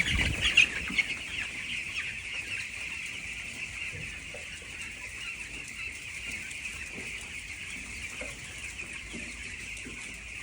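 A large flock of 12-day-old chicks peeping steadily. A loud thump right at the start.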